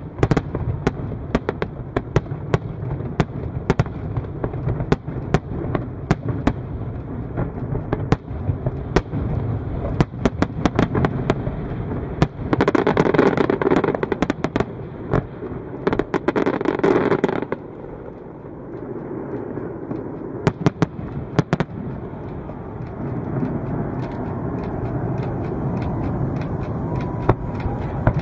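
Fireworks display: a rapid string of sharp bangs from bursting aerial shells, with two spells of dense crackling about halfway through, then fewer, more scattered bangs toward the end.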